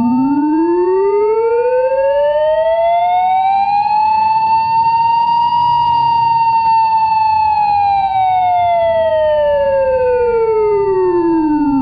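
Emergency alert alarm: a siren winds slowly up in pitch to a peak about halfway through and falls back down, under a steady high alarm tone that holds throughout.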